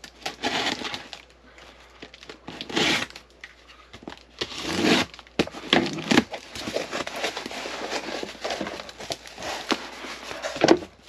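Packing tape being slit and torn off a cardboard box, then the cardboard flaps rustling and scraping as the box is pulled open. It comes in irregular bursts, with the loudest tears about 3 and 5 seconds in.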